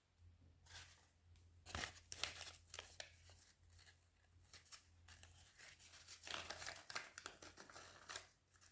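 Slime being worked by hand, giving off faint sticky crackles and tearing sounds in bursts, busiest about two seconds in and again in the last few seconds.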